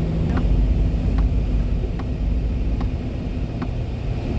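A motor vehicle running with a steady low rumble, and a sharp regular click repeating a little more than once a second.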